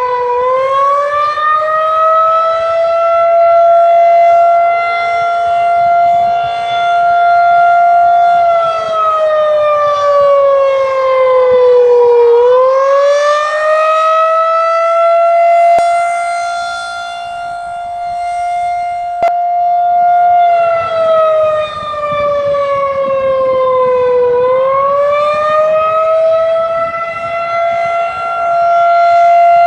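Federal Signal 2001-130 rotating tornado siren sounding the attack signal in 8-4 timing. It winds up to a steady high pitch, holds for about eight seconds, then winds down for about four before rising again. It rises three times and falls twice.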